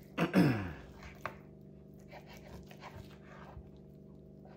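A short vocal sound falling in pitch near the start, then a sharp click and faint scraping as a kitchen knife saws through a stack of raw bacon on a wooden cutting board, cutting it poorly. A steady low hum runs underneath.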